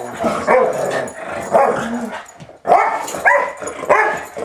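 A Boston Terrier puppy and a Labrador playing rough, giving a rapid string of short play barks and yips, with a brief pause about halfway through.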